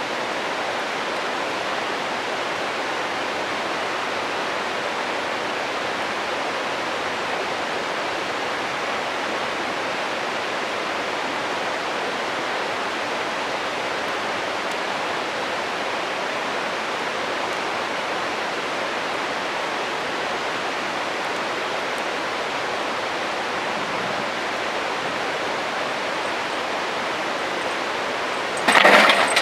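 Steady rushing of a stream's running water. Near the end comes a short, loud burst of noise, the loudest thing here.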